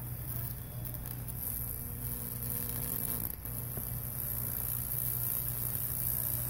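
High-voltage buzz from a microwave-oven transformer driving about 2,200 volts through wet plywood while Lichtenberg burns spread between the clamps, with a high hiss over a steady low hum. The buzz dips briefly a little past halfway.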